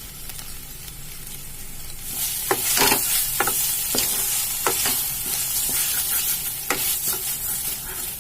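Chopped vegetables sizzling in hot oil in a frying pan, the sizzle growing louder about two seconds in, with a spoon scraping and knocking against the pan several times as they are stirred.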